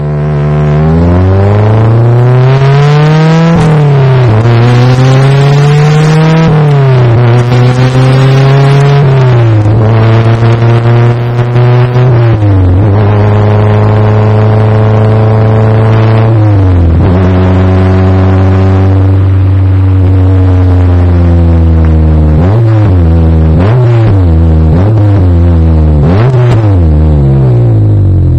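Honda S2000's inline-four engine, heard from inside the cabin, accelerating up through the gears: the revs climb and drop back at each of several upshifts, hold steady at a cruise, then rise and fall quickly several times near the end as it downshifts. The shifts are made without the clutch pedal by an aftermarket paddle-shift actuator on the stock manual gearbox.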